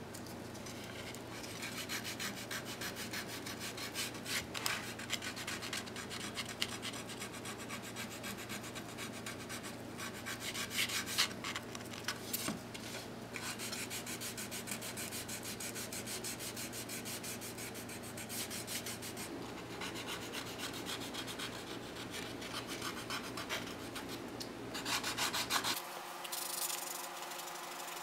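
Hand sanding of a carved walnut tray with a small folded piece of sandpaper: rapid, scratchy back-and-forth rubbing strokes with short pauses now and then, over a faint low hum.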